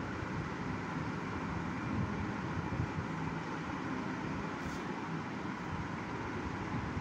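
Steady background noise, an even hiss with no break, and a faint click about four and a half seconds in.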